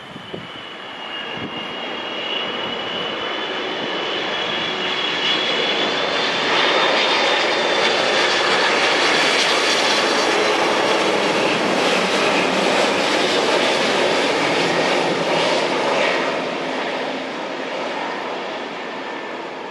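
Airbus A330-223 airliner on final approach flying over, its two Pratt & Whitney PW4168A turbofans making a steady rush that swells as it nears, stays loud through the middle, and eases off near the end. A high fan whine, rising slightly in pitch, rides over the rush as it comes in.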